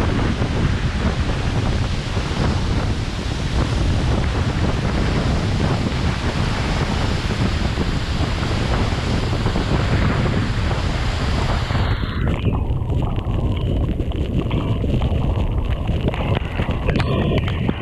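Steady rush of falling water with a heavy low rumble. About twelve seconds in, the hiss drops away abruptly and the sound turns muffled and low.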